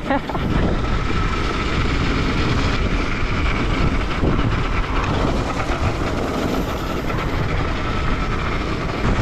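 Kawasaki KX250F single-cylinder four-stroke dirt bike engine running while riding along a rough dirt road, mixed with wind on the microphone.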